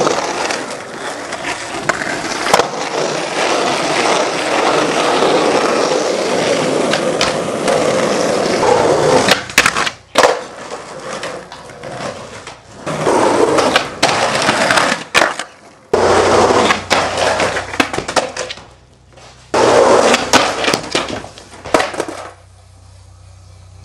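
Skateboard wheels rolling on concrete, with sharp clacks of the board around the middle, over several short clips. The rolling stops suddenly near the end, leaving a low hum.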